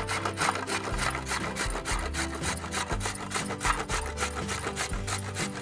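Carrot being grated on a stainless steel box grater: quick, even rasping strokes, several a second.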